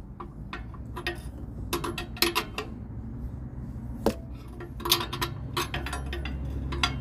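Ratchet wrench clicking and clinking in short groups of sharp metal clicks as it turns an oxygen-sensor socket, screwing a new O2 sensor tight into the exhaust pipe.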